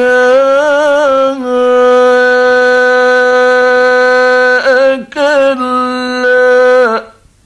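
A male Quran reciter chanting in the mujawwad style, holding long, ornamented notes on the words 'shurakaa' and 'kallaa', with a short break about five seconds in. The voice stops about seven seconds in.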